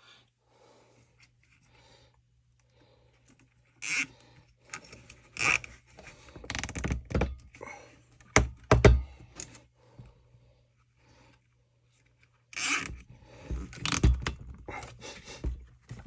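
Scattered clicks, knocks and scrapes of a hand tool working on the plastic housing of a Stihl FS 45 string trimmer being taken apart, in two spells starting about four seconds in and again about three seconds before the end. A faint steady low hum runs underneath.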